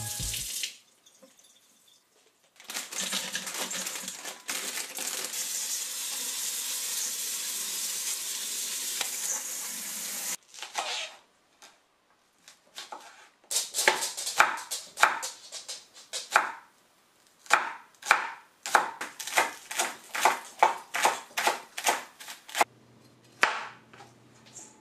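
Kitchen faucet water running steadily for several seconds, then cutting off suddenly. After a pause, a chef's knife chops green onions on a wooden cutting board in a long run of uneven strokes, about two a second.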